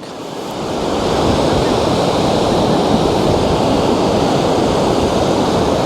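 Surf and wind of about 19 mph on an open beach, picked up through a Rode Wireless GO II wireless microphone: a steady rushing noise that builds over the first second.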